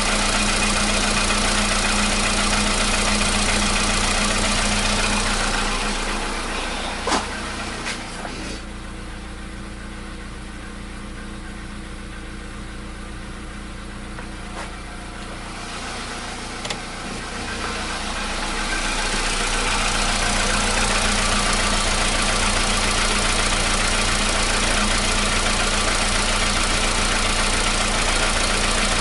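Volkswagen Polo Sedan petrol engine idling steadily while warming up, without the cold-start knock it used to have. Some six seconds in, the sound turns muffled for about twelve seconds, with a few sharp clicks, then comes back clear.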